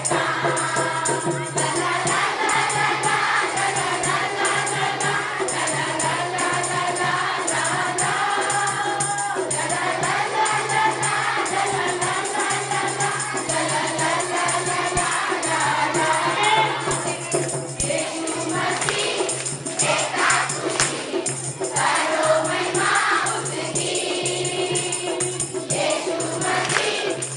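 A group of women singing together in chorus, with a tambourine jingling along to the beat.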